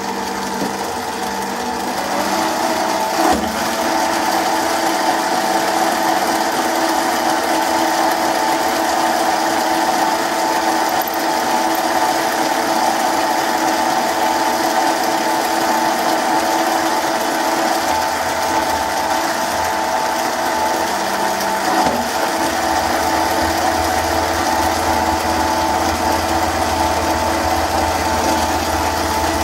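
MicroLux 7x16 mini lathe running steadily, its motor whining as it turns down threads on a small workpiece. Two brief knocks, about three seconds in and again around twenty-two seconds.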